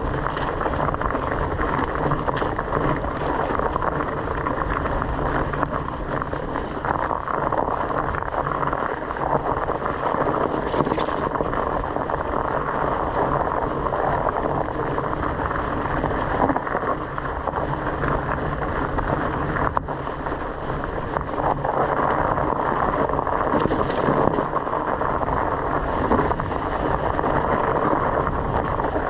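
Bicycle riding along a dirt forest trail: steady, muffled tyre rolling noise with wind on the microphone, and scattered small knocks and rattles from the bike over bumps.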